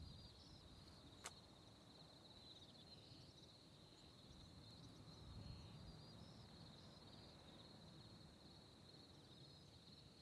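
Faint, steady high-pitched insect chorus, with one sharp click about a second in.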